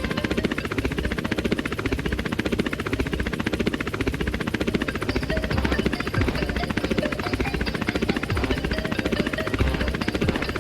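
Helicopter rotor running, a steady rapid chopping beat with a heavy low rumble.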